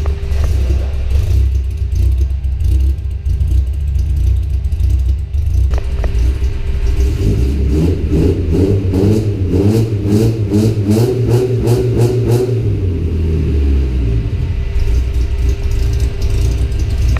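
Holden Gemini's engine running through its newly built exhaust, with a steady deep rumble. In the middle stretch it is revved up and down several times.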